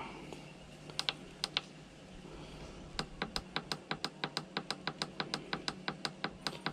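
Repeated presses on a Kings 75-litre dual-zone portable fridge's control-panel buttons. A few single clicks come first, then a quick even run of about five clicks a second, as one compartment's setpoint is stepped down to minus 10 degrees.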